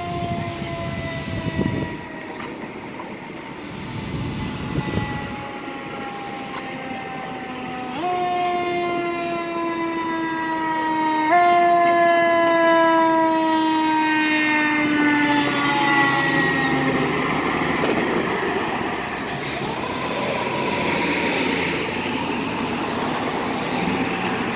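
Fire engine's air horns sounding in long held blasts, each slowly sliding down in pitch, with fresh blasts about a third and half of the way through, over the truck's engine and road noise.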